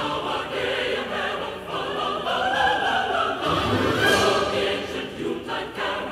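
Background music: a choir singing in a classical, operatic style.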